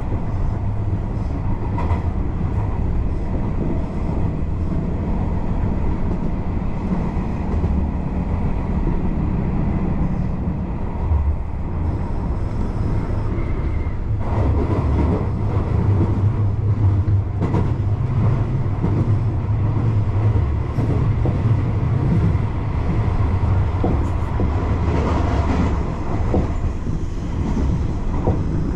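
Tobu Railway electric local train running along the track, heard from inside the front car: a steady low rumble of wheels on the rails with occasional clacks.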